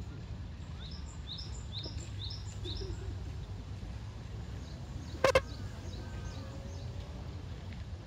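Small songbird chirping a quick run of five or six high notes in the first few seconds, with fainter chirps later, over a steady low background rumble. A single short, loud pitched note cuts in about five seconds in.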